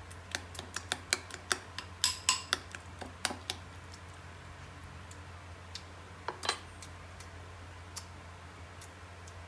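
Metal spoon clinking and scraping against a glass bowl while mashing and stirring a chunky fish dip. There are quick clicks for the first three seconds or so, then only a few scattered taps.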